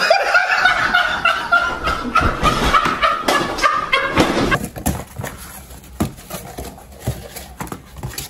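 Shrill, drawn-out shrieking laughter from young men, one long high wail slowly falling in pitch over about four seconds. After that it drops to quieter scattered knocks and clicks.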